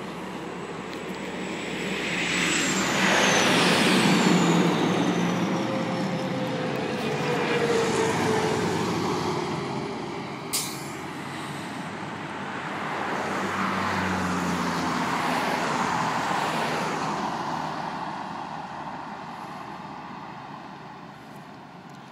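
A procession of tow trucks driving past one after another, the engine and tyre noise swelling and fading as each goes by, with pitches dropping as they pass. A short sharp sound comes about ten and a half seconds in, and the traffic noise fades toward the end.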